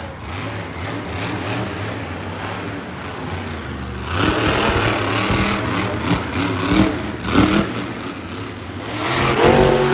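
Monster truck's V8 engine running and revving hard in repeated rising and falling bursts, louder from about four seconds in.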